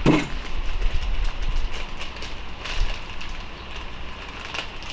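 Metal transmission parts being handled on the bench: a louder knock right at the start, then scattered clicks and knocks as the new bearing and main-shaft parts are worked.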